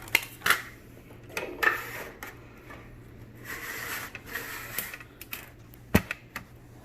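Clicks and clacks of stiff plastic vertical-blind vanes being handled and laid on a paper cutter, with a rustling scrape in the middle and one sharp snap near the end.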